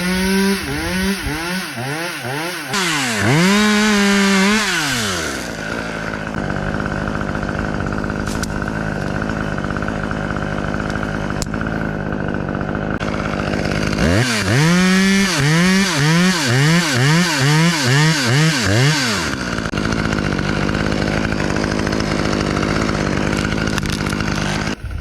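Two-stroke chainsaw engine idling and being revved in quick repeated throttle blips, twice in bursts of several revs, with a longer held rev a few seconds in before it settles back to idle.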